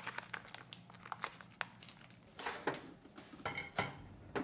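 Plastic lid film of an Ottogi instant cooked-rice bowl crinkling and crackling as a corner is peeled back to vent it, with scattered small clicks and light knocks as the plastic bowl is handled and set down near the end.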